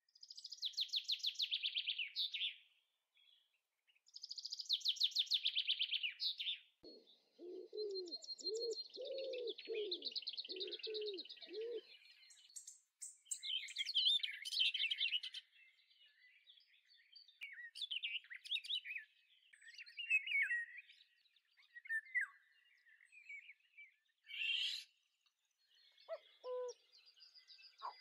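Birds singing and chirping: rapid high trills at first, then a run of about eight low, evenly spaced calls under the high chirping, followed by scattered chirps and short phrases.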